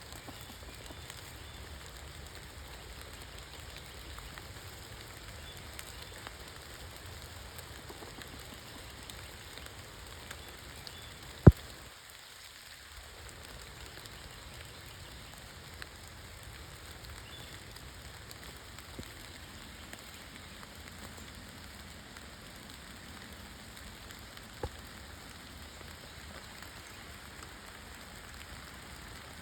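Steady, faint hiss like falling rain, with one sharp, loud click about eleven seconds in and a smaller click near the end.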